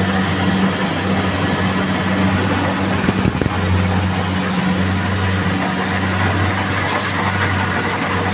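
Rice combine harvester running: a steady engine hum with mechanical noise over it.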